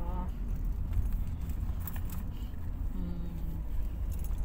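Low, steady rumble of a taxi driving, heard from inside the cabin. A few light clicks come about two seconds in, and a short voice about a second later.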